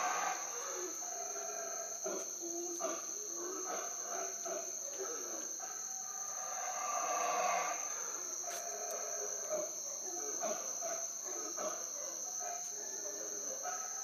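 Insects droning steadily in a continuous high-pitched tone. Fainter, irregular short calls and chatter come and go at a lower pitch underneath.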